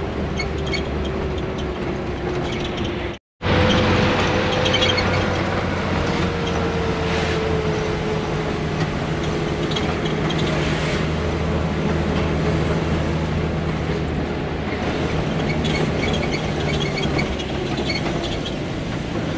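Bus engine running on the road, heard from inside the bus, its pitch slowly falling. The sound cuts out completely for a moment about three seconds in.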